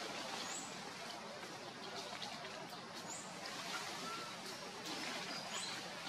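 Outdoor forest ambience: a steady background hiss with three short, high chirps spaced a couple of seconds apart and one brief whistle-like note past the middle.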